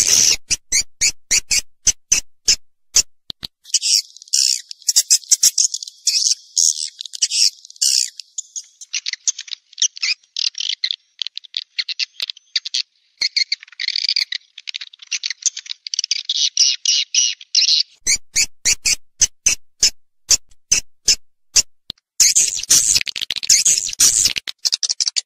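Swiftlet calls of the kind played to lure swiftlets to nest houses: rapid runs of sharp clicks alternating with dense, high twittering chirps. The clicks stop after about three seconds, leaving only the high twittering, and come back near the end.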